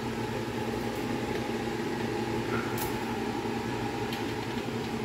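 Steady machine hum from a running motor, with a faint click about three seconds in.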